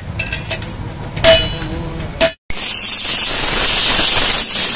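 A few sharp metal clinks and knocks, one ringing briefly, as a moped's front fork tube is worked in a metal jig. After a sudden cut about halfway through, a pressure washer jet hisses steadily as it blasts water onto a wheel hub.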